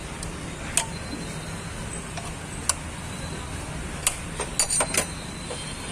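Sharp metallic clinks of hand tools: single clinks spaced a second or two apart, then a quick cluster of several near the end, over a steady low hum.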